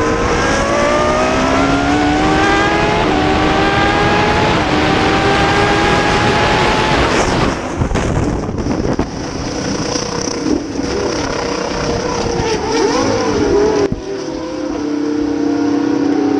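Race car engine accelerating hard, its pitch climbing and dropping back at each upshift. About eight seconds in the sound changes abruptly, the engine note then wavering up and down. It changes again near the end to a steadier note.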